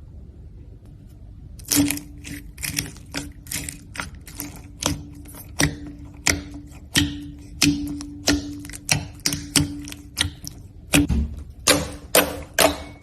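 Slime being pressed and poked, giving a run of sharp clicking pops about one to two a second, starting about two seconds in.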